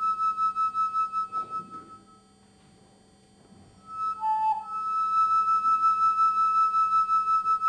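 Concert flute played solo in long held notes with vibrato: a high note held for about two seconds, a pause of almost two seconds, then a short lower note leading into another long high note.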